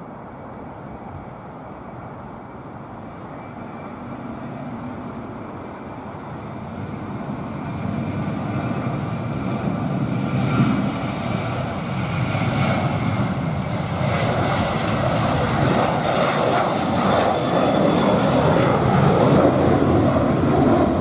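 Qantas Boeing 737-800's twin jet engines at takeoff power, a rumbling roar that grows steadily louder as the jet rolls, lifts off and climbs out. A high whine comes in about halfway through.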